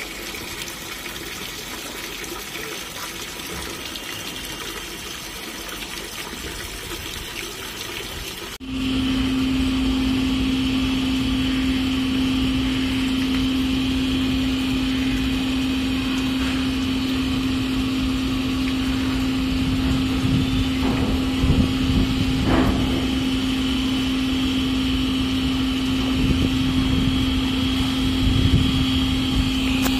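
A steady rushing hiss, then about a third of the way in a louder, steady machine hum with a single low tone cuts in abruptly and keeps going, with some low rumbling under it.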